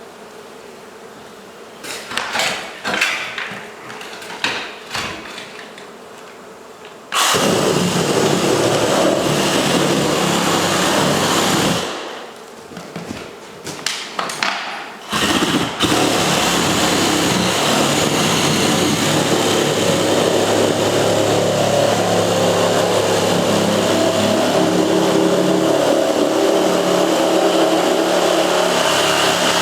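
A few knocks, then a vacuum motor switches on abruptly and runs loud and steady, most likely sucking up wall insulation. It cuts out briefly about twelve seconds in and starts again about three seconds later.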